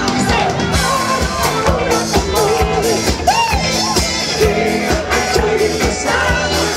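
A rock band playing live in a 70s-style rock and roll groove: electric guitars and drums on a steady beat, with a male lead singer.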